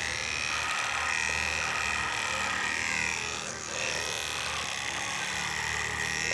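Electric hair clipper buzzing steadily while cutting a man's hair, with a brief dip about three and a half seconds in.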